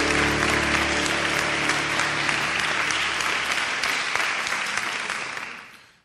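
School auditorium audience applauding, dense clapping after the sai-spinning act, as the backing music stops within the first second. The applause fades out near the end.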